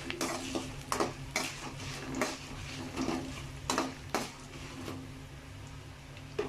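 A spatula knocking and scraping against a kadai while stirring peanuts, dals and broken dried red chillies frying in oil: irregular clinks about once a second, thinning out near the end.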